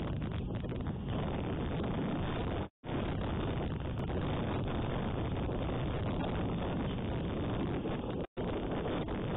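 Steady low rumble of wind on an outdoor nest-camera microphone, with the audio cutting out completely for a moment twice.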